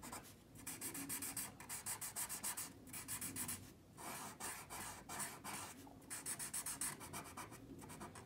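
Black marker drawing on paper in many quick back-and-forth strokes, tracing over hand-drawn letters to thicken them, broken by short pauses every second or so.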